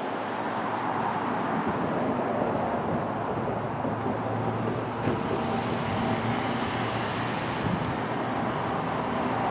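Freight train with diesel locomotives approaching: a steady rumble that grows slowly louder, with a low engine hum coming in about halfway through.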